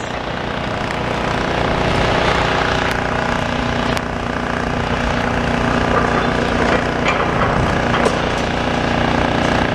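Heavy demolition machine's diesel engine running steadily under load, with a few light knocks.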